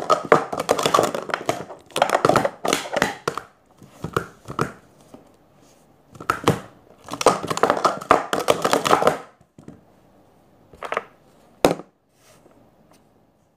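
Plastic sport-stacking cups clattering quickly as a 3-6-3 stack is built up and taken down, in two runs of about three seconds each, followed by a couple of single taps near the end.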